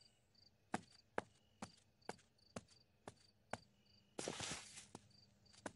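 Faint cartoon sound effects: a regular ticking of sharp clicks, about two a second, with a faint high chirp between the ticks, and a brief rustling swish about four seconds in.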